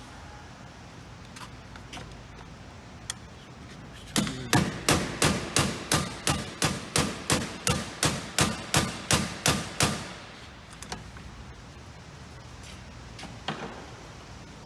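A hammer striking the metal of a vending machine's lock in a quick, even run of about eighteen blows, roughly three a second, lasting some six seconds, with a few single clicks and knocks before and after.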